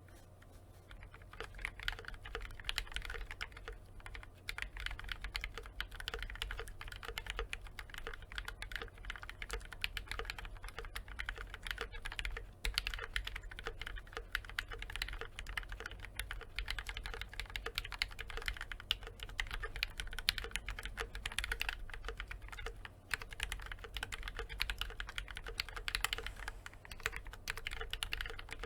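Typing on a KBD67 V2 MKII mechanical keyboard with lubed and filmed Gateron Black Ink V2 linear switches on Invyr UHMWPE stems, under GMK keycaps. A steady, dense stream of keystrokes, with brief pauses about twelve and twenty-three seconds in.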